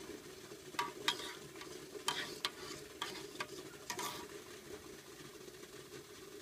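Spoon stirring hot cocoa, clinking against a metal cup or pot about seven times over the first four seconds, over a steady low hum.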